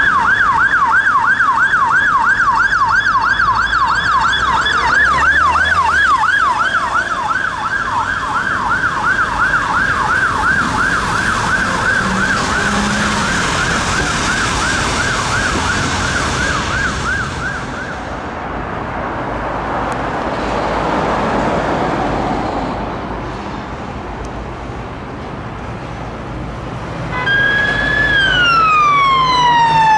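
Honda ST1300 ambulance motorcycle's siren in a fast yelp, about three sweeps a second, which stops about 18 seconds in, leaving traffic noise. Near the end a police siren starts a slow wail, sweeping down and back up.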